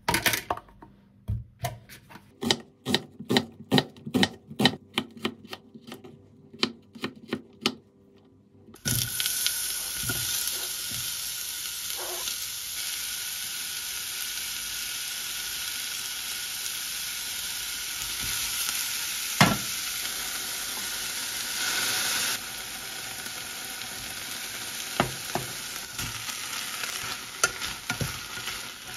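Knife chopping on a plastic cutting board, about three strokes a second. About nine seconds in, a loud sizzle starts suddenly as sliced onion hits the hot oil in a small pan, then carries on steadily as onion and bok choy fry, with tongs clicking against the pan as they are stirred.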